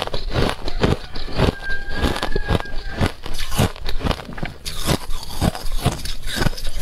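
Thin sheet ice being bitten and chewed close up: a steady run of crisp crunches and crackles, about three a second.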